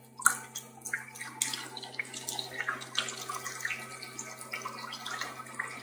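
Thin stream of water falling from a PVC condensate-trap drain pipe into a plastic bucket, an irregular splashing trickle, with a low steady hum underneath.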